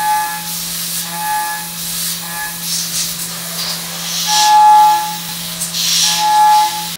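CNC milling machine's spindle at about 10,000 rpm, a 3/4-inch end mill roughing 6061 aluminium: a steady hum under the hiss of coolant spray, with a ringing cutting tone that swells and fades as the tool works along the part. The cutting tone is loudest about four to five seconds in and again near the end.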